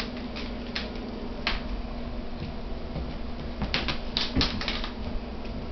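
Light, scattered clicks and taps of a cat's claws and a noisy toy mouse on a hardwood floor, with a quick run of clicks about four seconds in as the cat moves onto the bed. A steady low hum runs underneath.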